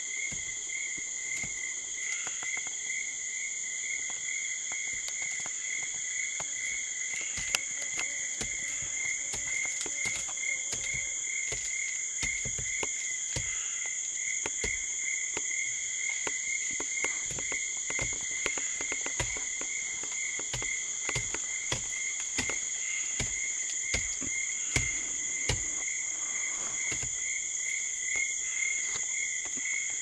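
Tropical rainforest animal chorus: several steady high-pitched calls overlapping, one of them a pulsing note repeating a few times a second. Scattered short clicks and knocks run through it.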